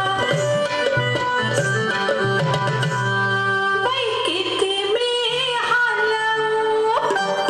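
Lavani dance song playing: drumming with held melodic instrument tones, and a singing voice coming in about four seconds in.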